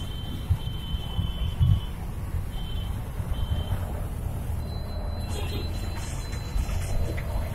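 Busy road traffic heard from a moving auto rickshaw: a steady low rumble of engines, with scooters and motorcycles riding close alongside. A thin high beeping tone sounds a few times in the first half, then a steady high tone holds from a little past halfway.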